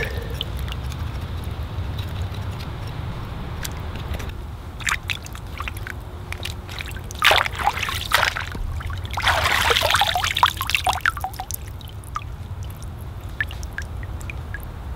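Water pouring and sloshing in two bursts, one short and one about two seconds long, with scattered light clicks and knocks over a steady low rumble.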